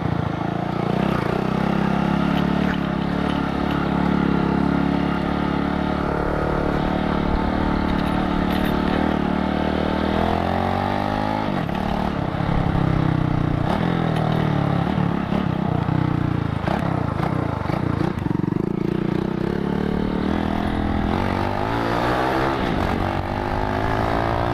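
Small motorcycle engine running under way, heard from the rider's seat, its pitch rising as it accelerates about ten seconds in and again near the end, over a steady rush of riding wind.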